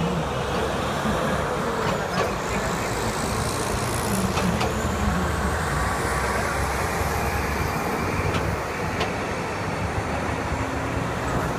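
Steady highway traffic: cars and trucks passing on the turnpike, with tyre and engine noise.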